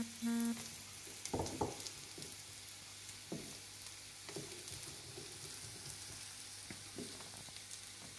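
Metal spoon stirring thinned idli batter in a bowl, scraping and clinking against the bowl every second or so, over a steady faint sizzle of frying. Two short steady tones sound right at the start.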